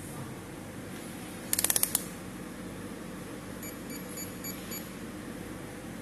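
Electronic cabinet lock's buzzer giving a quick run of about six short beeps as a round key tag is held to it, then a faint high pulsing about two seconds later. A steady low electrical hum underneath.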